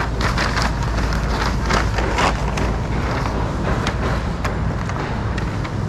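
Paper shopping bag rustling and crinkling as it is opened and packed, in a quick run of crackles over the first few seconds and a few scattered ones later, over a steady low rumble.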